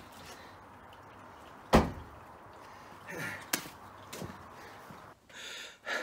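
A single heavy thud about two seconds in, then a few lighter knocks and clicks, from a heavy object being handled at a car's open boot. Breathy sounds from a man exerting himself come near the end.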